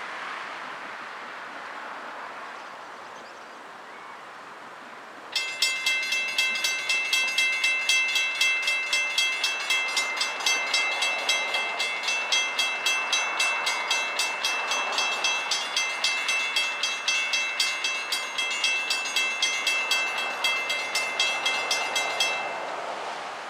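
Railroad grade-crossing warning bell ringing in rapid, even strikes, about three to four a second, as a freight train approaches. It starts suddenly about five seconds in and stops shortly before the end, after a few seconds of soft wind and outdoor noise.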